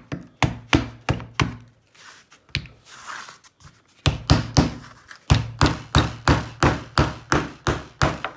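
Hammer driving a nail into a wooden block: quick, even blows about three a second, broken by a pause of about two seconds near the start, then a long unbroken run of blows.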